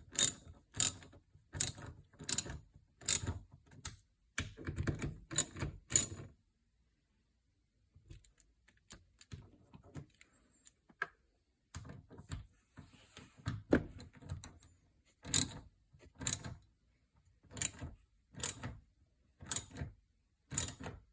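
Socket ratchet clicking, one sharp click a little under a second apart, as it lightly tightens the 5/16 mounting nuts of a side mirror. The clicks stop for several seconds in the middle and then resume at the same pace.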